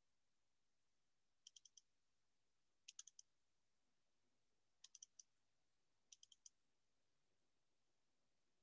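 Near silence broken by four short runs of faint clicking at a computer, three or four quick clicks in each run.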